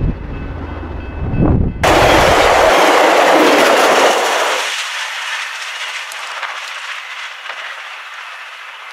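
A low rumble, then after a cut about two seconds in, a VIA Rail passenger train of Renaissance coaches rushing past close by with a loud hiss of wheels and air. It is loudest for a couple of seconds, then fades steadily as the train pulls away.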